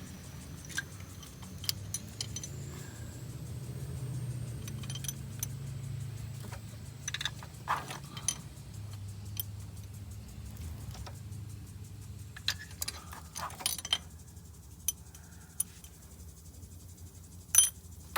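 Scattered light metallic clicks and clinks of small steel valvetrain parts being handled and set down from a Chevy 5.3L V8, with a low steady hum underneath that stops about fourteen seconds in.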